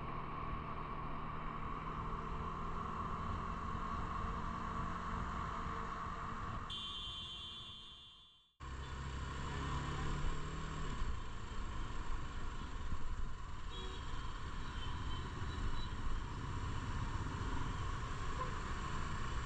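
Motorcycle running along the road with steady engine, wind and road noise. The sound fades out and cuts off just after eight seconds, then picks up again at the same level.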